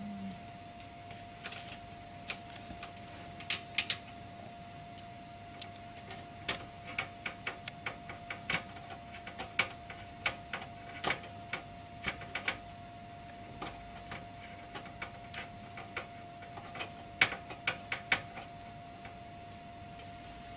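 Screwing a graphics card's metal bracket to a computer case: irregular sharp clicks and taps of the screwdriver and screw on metal, several a second at times.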